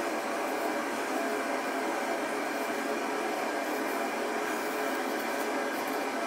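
A steady, even whooshing noise with faint held tones through it and no sudden sounds.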